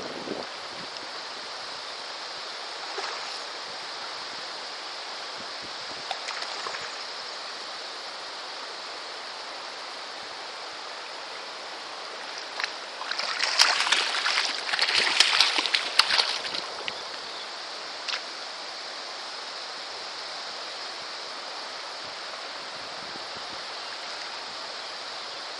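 Steady rushing of stream water, with a hooked rainbow trout thrashing and splashing at the surface for about four seconds around the middle.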